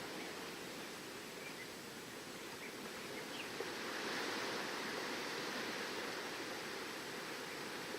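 Steady wash of ocean surf with wind, swelling slightly around the middle, and a few faint short bird chirps in the first half.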